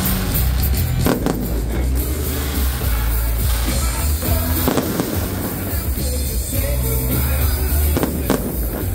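Fireworks going off, with sharp bangs about a second in, a cluster around the middle and two close together near the end, over loud music with a steady bass line.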